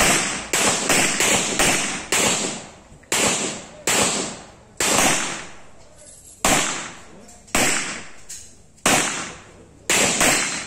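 Handgun shots fired in a practical shooting stage: about fourteen sharp cracks, several in quick succession in the first two seconds, then singles and pairs spaced up to a second and a half apart, each with a short echoing tail.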